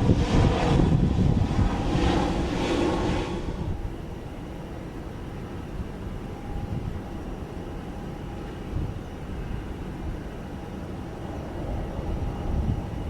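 Airliner jet engines, loud for the first few seconds, then falling away to a quieter steady rumble as the aircraft moves off.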